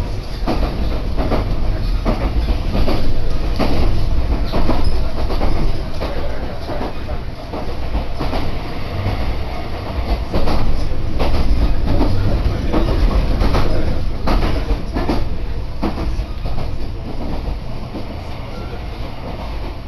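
Inside the cabin of a Kintetsu Gose Line train running between stations: a steady rumble, with the wheels clicking over rail joints throughout.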